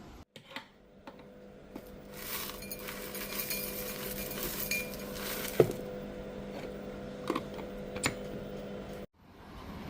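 Dishes and cutlery clinking in a kitchen over a steady low hum, with a few seconds of hiss in the middle and several sharp clinks in the second half.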